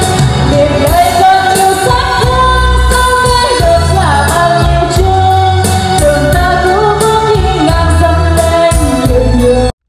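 A woman singing karaoke into a microphone over a backing track with a heavy bass beat, played loud through the NT 1508 electric trolley karaoke speaker. The music cuts off abruptly just before the end.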